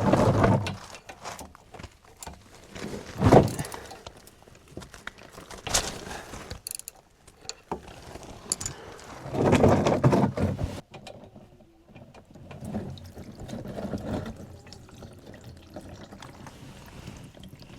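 Hand tools clinking and ratcheting under a Yamaha golf cart, with old engine oil pouring out of the drain in a series of separate bursts.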